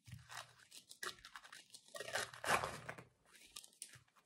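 Small cotton drawstring bag rustling and crinkling as fingers squeeze and work a celestite crystal out of it, in faint scattered bursts with a louder stretch about two seconds in.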